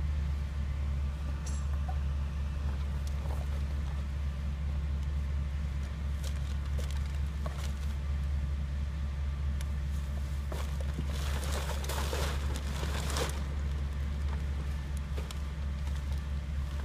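Steady low hum of a car engine idling, heard from inside the car. About eleven seconds in, a couple of seconds of louder rustling noise comes over it.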